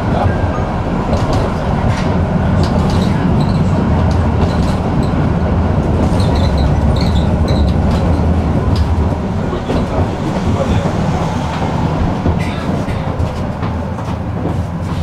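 A tram running along its rails: a steady rumble of wheels and running gear, with scattered clicks from the track and a few short high squeaks around the middle, easing slightly in level in the second half.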